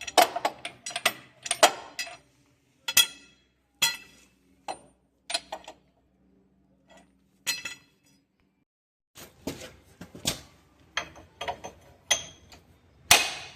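Hand tools clinking and knocking on the steel parts of a discbine cutter bar under repair: irregular sharp metallic clinks, each with a short ring, a pause in the middle, then a quicker run of clinks near the end.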